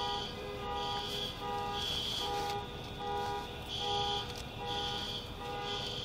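Car alarms sounding: electronic tones at two pitches that repeat on and off about once a second, overlapping.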